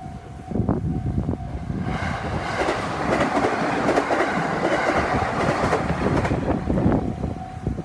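A local train passes over a level crossing. Its wheels clack over the rail joints, then it builds to a loud rumble for about four seconds in the middle. The crossing's warning signal sounds as a steady tone that is drowned out while the train goes by and returns near the end.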